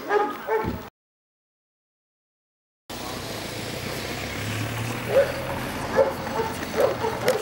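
Czechoslovakian wolfdog giving several short, sharp barks, more of them in the second half, as a stranger provokes her into defending herself. A steady low hum runs underneath, and the sound cuts out completely for about two seconds near the start.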